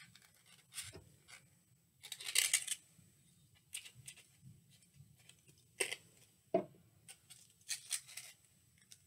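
Paper rustling and crinkling in the hands as a half circle of coloured paper is rolled into a cone, in short scattered bursts with a few light clicks.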